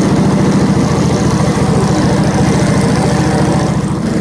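The engine of a Hudson HFE30 portable bandsaw mill running steadily, with an even beat.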